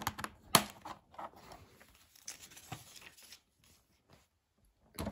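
Plastic LEGO bricks being pressed together and handled on a build: a few sharp clicks, the loudest about half a second in, then light rustling of loose pieces and a short pause before more clicks near the end.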